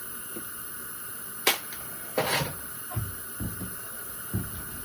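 Hand tools clicking and knocking on the metal of a mower deck's gear drive box: a sharp click about one and a half seconds in, a short scraping rasp just after two seconds, then a few soft knocks.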